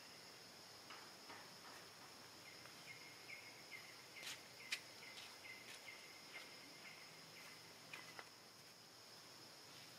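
Faint outdoor ambience: a steady high insect drone, with a run of short, faint chirps and clicks through the middle.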